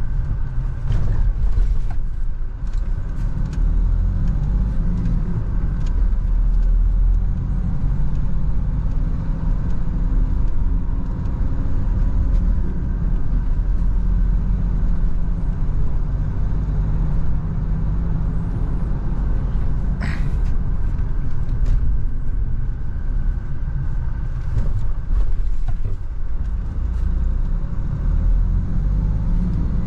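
Mahindra Bolero diesel SUV heard from inside the cabin cruising at about 80 to 90 km/h: a steady engine drone with road and tyre rumble. A single sharp click comes about twenty seconds in.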